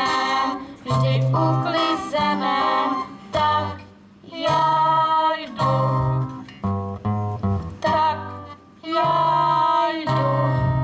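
Live acoustic guitars playing a song while voices sing along, in phrases with short breaks.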